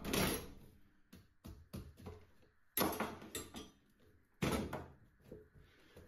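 Kitchen knife carving a pumpkin on a wooden chopping board: scraping and small clicks, with two sharp knocks about three and four and a half seconds in.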